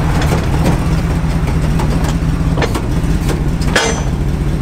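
Tow truck engine idling steadily, with light metallic clicks and one sharper clank near the end as the wheel-lift arms are fitted under a car's front wheels.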